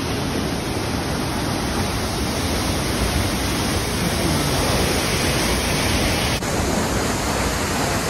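Waterfall rushing, a steady, loud, unbroken wash of falling water heard close to the falls.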